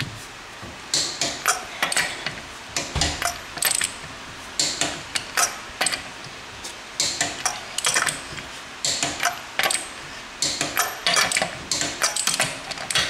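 Metal hand tools being handled and put away, clinking and clattering in irregular clusters of sharp clicks and clanks.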